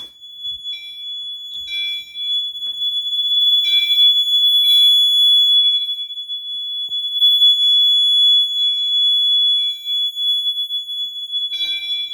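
Several fire alarm horns on one alarm circuit sounding together. One holds a steady high tone while others blare in short, unevenly spaced pulses, out of sync with each other.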